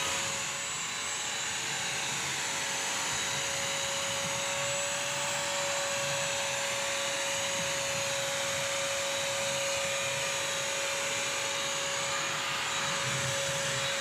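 Bissell CrossWave wet/dry vacuum-mop running steadily, a constant whine over a high hiss of suction, as it is pushed over wet and dry food spills on a hard floor.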